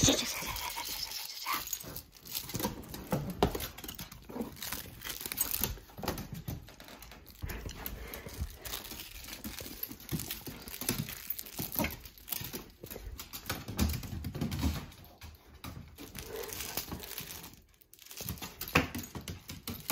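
A small puppy playing tug-of-war with a plush rope toy, the toy rubbing and shaking in irregular bursts with the dog's play noises.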